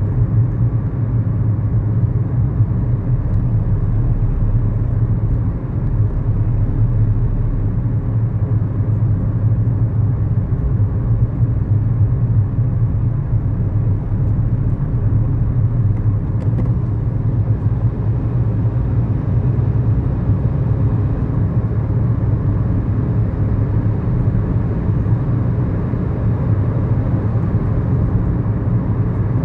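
Steady in-cabin hum of a 2011 Kia Morning's 999 cc four-cylinder engine and road noise, heard inside the small car.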